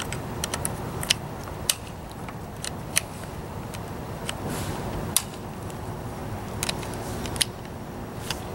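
5.56 cartridges being pressed one at a time into an AR-15's fixed magazine through the opened receiver, each round giving a sharp click as it snaps in under the feed lips; the clicks come irregularly, a dozen or more, over a steady outdoor background hiss.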